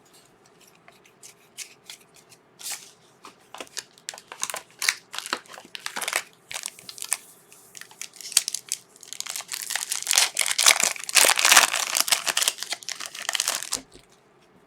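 Trading card pack wrapper being torn open and crinkled by hand, with irregular crackles and snaps. The crinkling grows dense and loudest about two-thirds of the way through, then stops shortly before the end.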